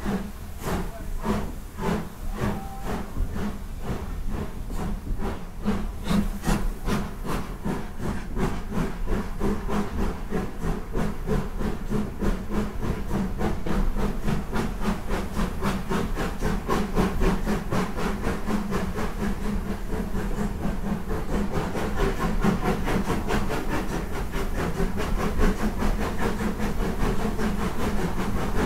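Midland 4F 0-6-0 steam locomotive 43924 pulling away with its train: the exhaust chuffs start slow, under two a second, and quicken steadily as it gathers speed, with hissing steam.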